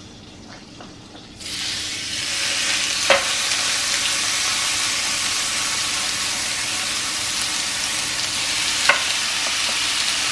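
Raw steaks sizzling as they are laid into a hot, lightly oiled grill pan: the sizzle starts suddenly about a second and a half in and then holds steady. Two short sharp clicks come through it, at about three seconds and near nine seconds.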